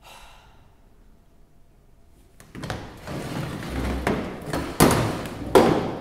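Metal-legged plastic stacking chairs being moved and set down on a wooden stage floor, with footsteps. A run of scuffs and thumps starts about two and a half seconds in, with three sharp knocks in the second half.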